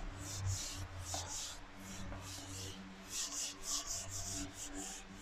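Handheld whiteboard eraser rubbing across a whiteboard in repeated back-and-forth wiping strokes. The strokes come faster and closer together in the second half.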